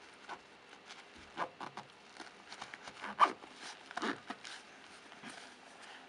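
Packed ballistic-nylon pouch being handled and zipped shut: irregular rustling and short zipper and fabric clicks, with one sharp click about three seconds in.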